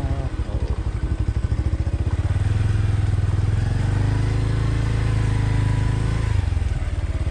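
A vehicle engine running while driving, its rapid firing pulses plainly heard; about two seconds in it settles into a steadier hum for a few seconds.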